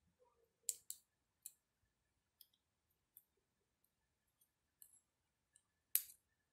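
Light, sharp clicks of a precision screwdriver's metal tip against the tiny screws and parts of a Samsung Gear S2 smartwatch during disassembly. About eight irregular clicks, the loudest one near the end.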